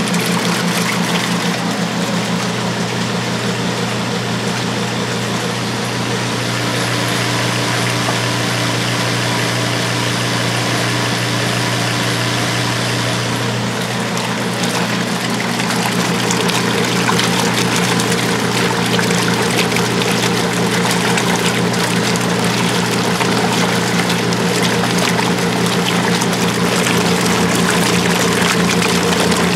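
1986 Kenmore 60 Series direct-drive top-load washer agitating a full tub of water: the agitator churns and sloshes the water back and forth over a steady hum from the drive.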